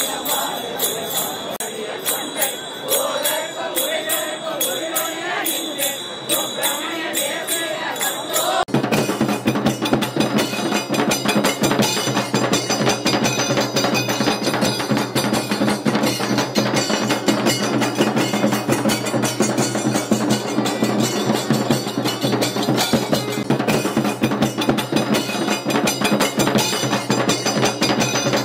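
Rhythmic jingling of bells, about two strikes a second, over a steady high ringing tone; about nine seconds in, this cuts abruptly to dense rhythmic music of struck bells and percussion that runs on.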